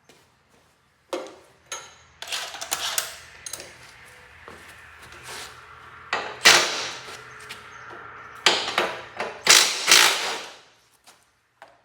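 Tools working on bolts in a Cub Cadet 782 garden tractor's frame during engine removal: a series of uneven bursts of tool noise and knocks, the loudest about six and a half and ten seconds in.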